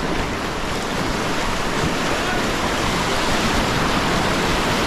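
Whitewater rapids rushing, a steady loud wash of water heard from a kayak running the rapid, growing slightly louder.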